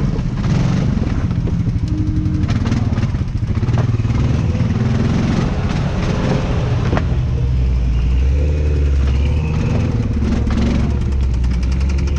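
Off-road vehicle engines running: one idles steadily close by while another rises and falls in pitch as it is revved, with a few sharp knocks.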